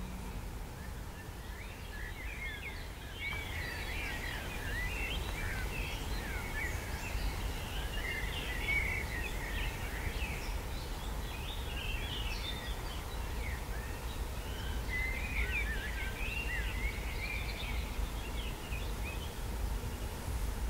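Many small birds chirping and singing with quick short notes that sweep up and down, over a steady low rumble.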